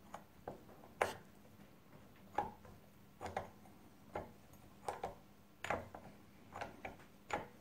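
A differential's crown wheel and pinion being rocked forwards and backwards by hand under load, giving light, irregular clicks and knocks about once a second as the teeth roll through the yellow engineer's marking paint to take a tooth contact pattern.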